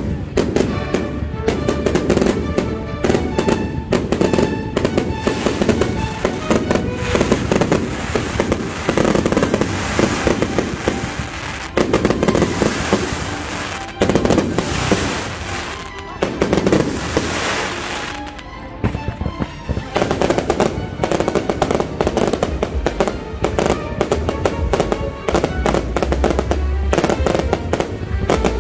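Fireworks bursting and crackling in rapid, continuous succession, with music playing alongside.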